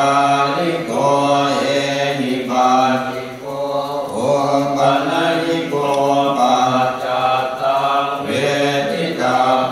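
Thai Buddhist prayer chanting (suat mon): voices reciting on a nearly steady low pitch in long phrases, with short pauses between them.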